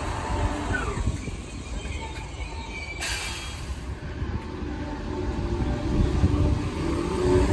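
Merseyrail Class 507 third-rail electric multiple unit at the platform, giving a steady rumble of running and wheel noise. About three seconds in the sound changes abruptly at a cut. Near the end it grows louder, with several steady tones over the rumble.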